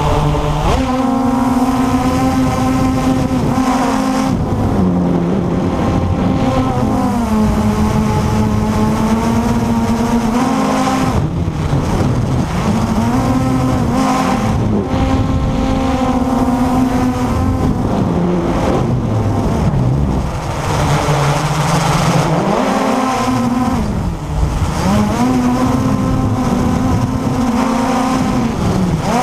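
Blade 350 QX3 quadcopter's four brushless motors and propellers whining in flight, heard from a camera mounted on the craft. The pitch sags and climbs again several times as the throttle changes.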